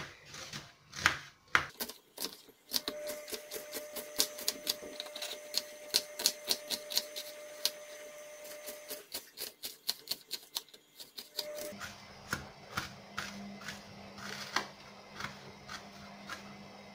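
Paring knife chopping an onion on a plastic cutting board: quick runs of sharp taps as the blade strikes the board. A low steady hum sets in about two-thirds of the way through.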